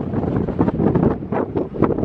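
Wind buffeting the microphone: an irregular, gusty rumble.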